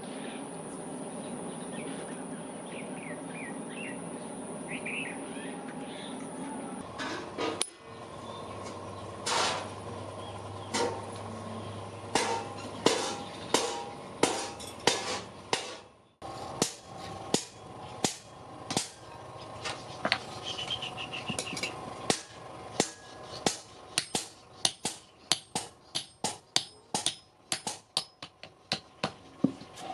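Hammer strikes on metal at the forge, each blow ringing; sparse at first, then a steady run of about two blows a second in the last several seconds. Before the hammering begins, birds chirp over a steady background noise.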